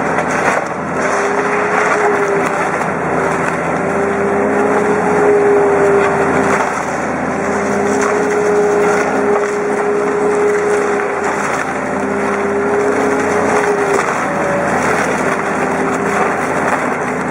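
Engine-driven wood-processing machine running steadily, with a dense crackle of wood being chipped or shredded. The engine note breaks off briefly a few times.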